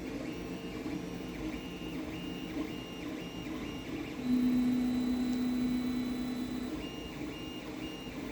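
3D printer running mid-print: its stepper motors give short high whines in a steady pattern about twice a second, with a louder steady low hum for a couple of seconds in the middle.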